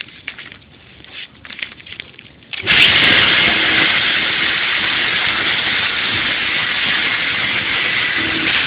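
A belt-driven sunflower seed thresher is switched on about two and a half seconds in and runs up at once to a loud, steady rushing noise with a faint hum underneath. Before that there are a few light clicks and knocks.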